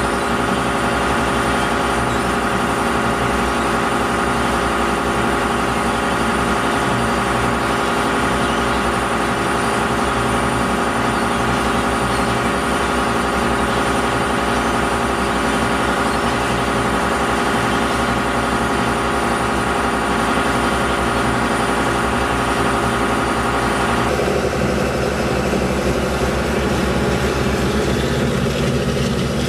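Shrimp boat's engine running steadily, a constant deep drone with a steady hum over it; the tone changes near the end.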